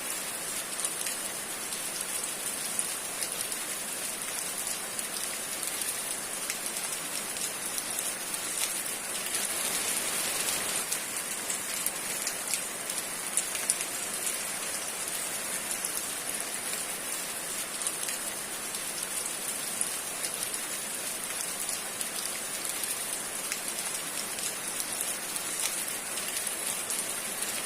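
Steady rain falling: an even hiss with many small scattered drop ticks.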